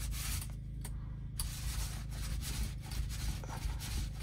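Paint roller loaded with white paint rolling over an RV's interior panel: a rasping hiss that swells and fades with the back-and-forth strokes.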